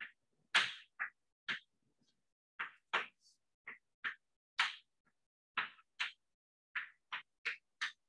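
Chalk writing on a blackboard: an irregular run of short, sharp chalk strokes and taps, about two a second, as an equation is written out.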